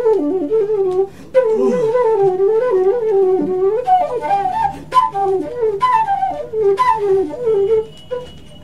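Background music: a slow, ornamented flute melody that gently winds up and down, thinning out near the end.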